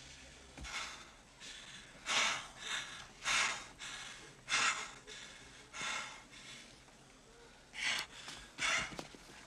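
A man breathing hard, in loud breaths about a second apart with a pause near the middle: he is winded after a bare-knuckle fight.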